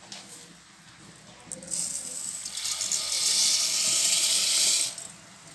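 Rice grains poured in a stream into a pot of water, a steady pouring hiss. It builds from about two seconds in and stops abruptly near the end.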